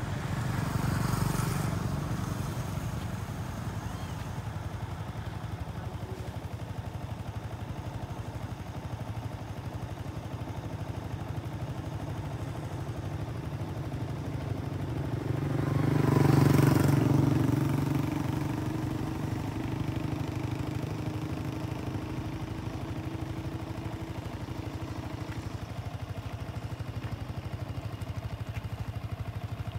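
Steady low engine rumble of passing traffic, with a motor vehicle swelling and fading briefly about a second in and again, louder, about 15 to 18 seconds in.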